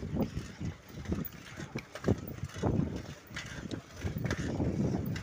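Bicycle being ridden on a paved road: irregular clicking and rattling from its chain and freewheel over a low tyre rumble.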